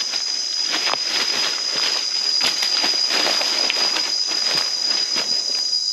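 Footsteps crunching through dry leaf litter, irregular and uneven, over a steady high-pitched drone of jungle insects.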